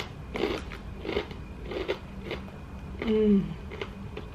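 A person chewing a mouthful of food close to the microphone, chews about every two-thirds of a second. About three seconds in comes a short hum of her voice that falls in pitch, the loudest sound here.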